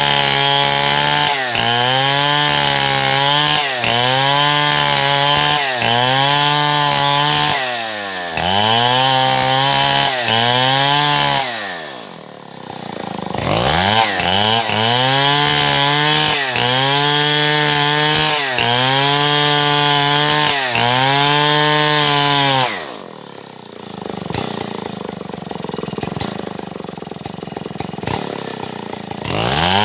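Stihl MS070 two-stroke chainsaw at high revs, its pitch dipping and recovering about every second and a half as the chain bites into wood. It drops to idle once around 12 seconds in, revs back into the cut, then idles for several seconds before revving up again near the end.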